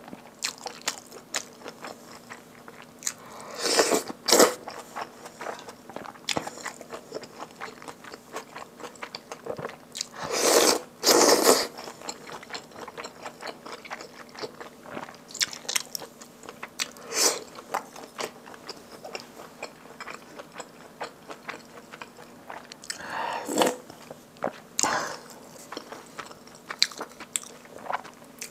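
Close-miked chewing of kimchi stew and rice: a steady run of small wet mouth clicks and smacks, with a few louder, longer eating sounds about 4, 11 and 23 seconds in.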